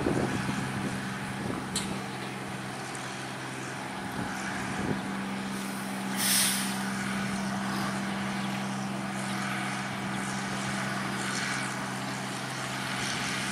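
New Holland 8060 combine harvester's diesel engine running at a steady pitch as the machine moves across the field. A short hiss sounds about six seconds in.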